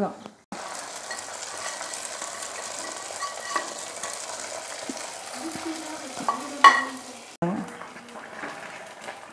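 Hot ghee with fried cashews and raisins poured into a pot of moist sweet rice-and-lentil mixture, sizzling steadily. It starts abruptly about half a second in and cuts off near the end, with a spoon clinking against metal just before it stops.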